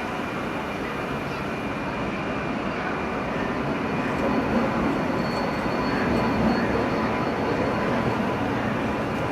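Indian Railways passenger train running, a steady wash of wheel and carriage noise that grows slightly louder midway.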